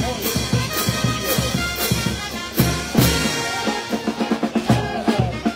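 Live Peruvian brass band playing: a steady snare and bass-drum beat under the horns, with the bass drum dropping out briefly a little past halfway.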